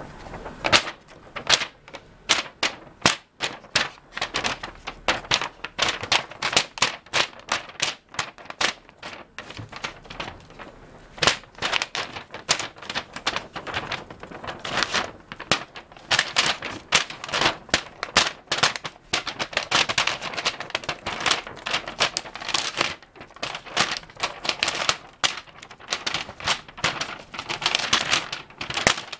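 Cat clawing and batting at a sheet of paper held over it during rough play. Its claws make rapid, irregular scratching and tapping, several strikes a second, without a break.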